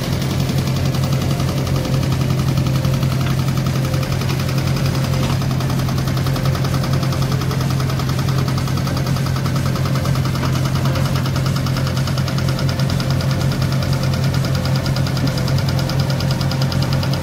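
JCB 3DX backhoe loader's diesel engine running steadily as the backhoe digs and swings loads of earth.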